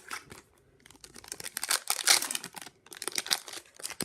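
Foil wrapper of a hockey card pack crinkling and tearing as it is pulled open by hand, a rapid run of crackles that is loudest in the middle.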